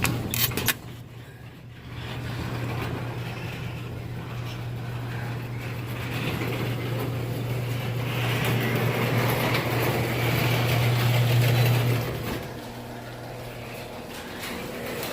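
Steady low mechanical hum, growing louder for a few seconds and dropping back about twelve seconds in, after a few sharp clicks at the start.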